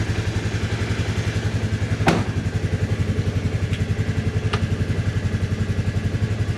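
2021 Polaris Ranger 500's single-cylinder engine idling steadily with an even pulsing beat, freshly started cold. A single sharp knock sounds about two seconds in.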